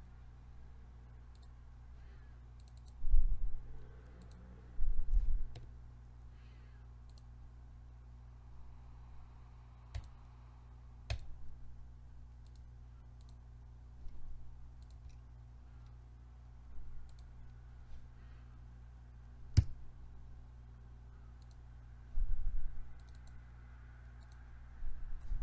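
Computer mouse clicking as objects are picked on screen: scattered sharp clicks a few seconds apart, with a few dull low thumps, over a steady low hum.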